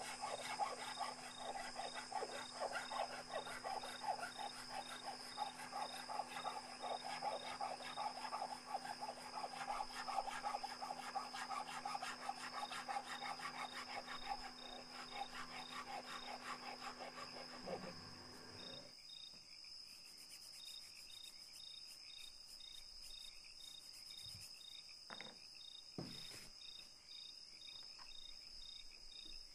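A hand file scraping the wooden head of a guqin with fast, rough strokes, which stop abruptly about two-thirds of the way through, leaving a few light clicks. Crickets chirp steadily and faintly behind it.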